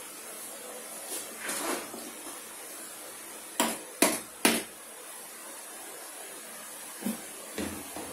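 Handling noise: a soft rustle, then three sharp knocks in quick succession, and two softer knocks near the end, over a steady hiss.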